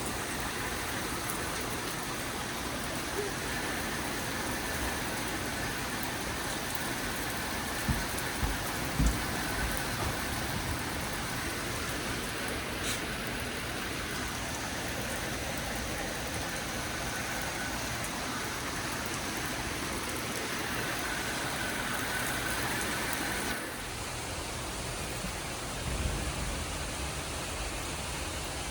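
Steady hiss of heavy rain falling during a thunderstorm, with two short low thumps about eight and nine seconds in.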